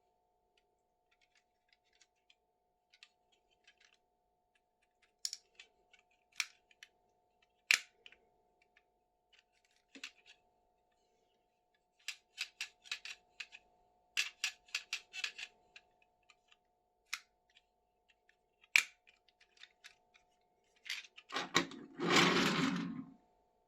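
Scattered small clicks and taps of plastic toy pieces and packaging being handled, with a faint steady tone underneath. About 21 seconds in comes a louder rustling scrape lasting about two seconds.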